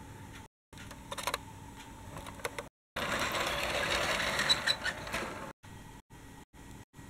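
Toy tram rolling along the track: a rattling run of about two and a half seconds, starting about three seconds in, with a couple of sharp clicks near its end. Before and after it there is only faint hiss, broken by brief silent gaps.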